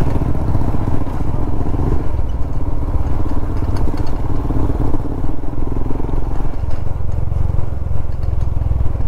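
Motorcycle engine running steadily while riding, a continuous low rumble of rapid firing pulses with road noise over it.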